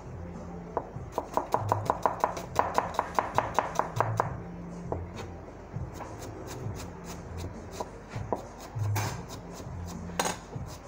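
Kitchen knives chopping red onion on a cutting board. A fast run of about six strokes a second lasts roughly three seconds, then the strokes come slower and scattered.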